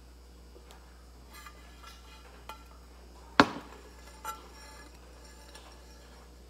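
A square dinner plate being handled and knocked against a hard surface: a few light clicks, then one sharp clack about three and a half seconds in and a smaller knock a second later.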